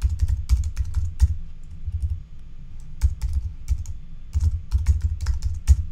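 Typing on a computer keyboard: irregular runs of quick keystrokes with short pauses between them.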